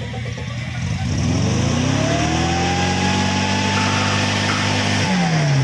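Off-road 4x4's engine revving as the vehicle climbs over rocks: the engine note rises from about a second in, is held high for a few seconds, then drops sharply near the end.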